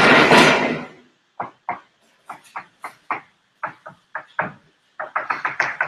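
A sliding chalkboard panel rumbling along its track as it is pulled into place, for about the first second. Then chalk tapping and scraping on the board in short separate strokes as boxes and arrows are drawn, a dozen or so, with a quick run of them near the end.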